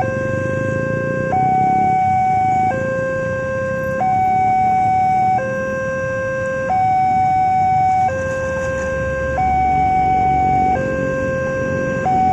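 Railway level-crossing warning alarm, an electronic two-tone signal switching between a higher and a lower tone about every second and a half. The higher tone is the louder one. Road traffic rumbles underneath.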